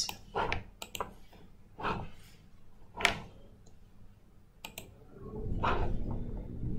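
Computer mouse clicking, about six short sharp clicks at irregular intervals, with a low, muffled rustling noise in the last second or so.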